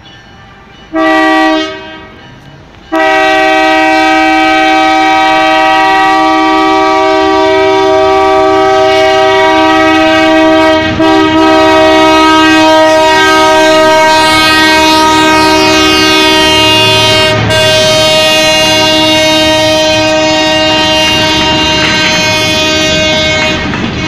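Air horns of EMD MP15AC diesel switcher locomotives, one short blast about a second in, then one long blast sounding as a steady chord from about three seconds until just before the end. Underneath, the locomotive and freight cars roll past with wheel clatter on the rails.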